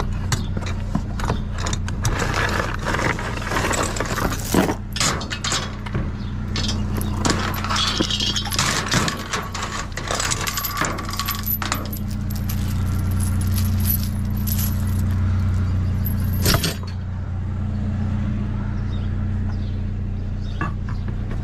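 A metal chain clinking and rattling as it is pulled out of a dumpster, with clatters of trash, over the steady hum of an idling vehicle engine. The rattling stops about three-quarters of the way through, leaving the engine hum.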